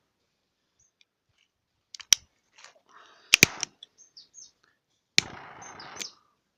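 Triple-jet butane torch lighter being fired: several sharp clicks of its piezo igniter, then the gas jet hissing for about a second after the last click.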